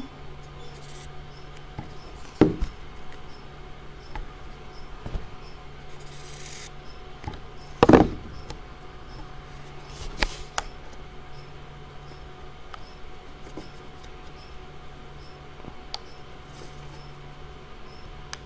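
Paper tabs being glued and pressed down on a tabletop: a few scattered knocks and taps, the loudest about eight seconds in, between soft rubbing and handling sounds.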